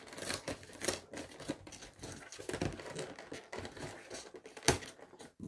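Small cosmetic packaging being handled and opened by hand: scattered crinkling, rustling and light clicks, with one sharp click about four and a half seconds in.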